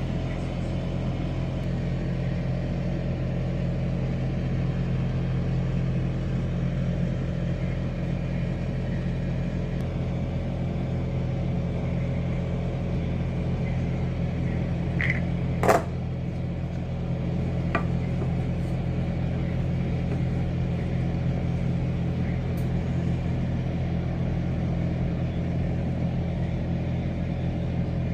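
Air fryer running with a steady fan hum. One sharp click comes a little past halfway, and a fainter one about two seconds later.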